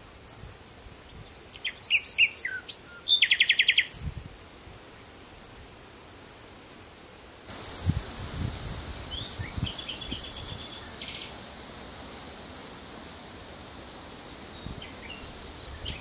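Common nightingale singing: a few whistled notes, then a loud rapid trill of about ten repeated notes a couple of seconds in, followed by fainter phrases in the second half. A steady high-pitched insect trill runs underneath until about nine seconds in.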